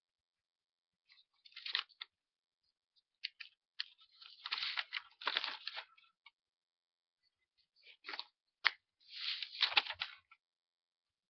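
Paper cards rustling and crinkling in the hands as they are shuffled and swapped, in three bouts with short pauses between.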